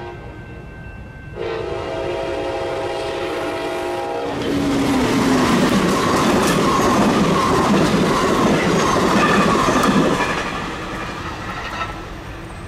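Passenger train led by a Siemens Charger diesel locomotive sounding its air horn, a brief note at the start, then a held chord blast of about three seconds as it approaches. Then the train rushes past loudly for about six seconds, wheels clattering, and fades as it pulls away.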